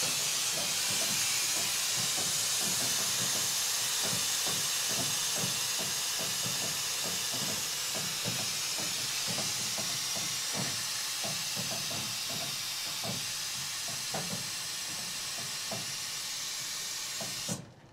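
Compressed air hissing steadily from a Scania truck's air suspension as the body is lowered to match the loading dock height, easing off slightly before cutting off abruptly near the end. Faint irregular ticks run underneath.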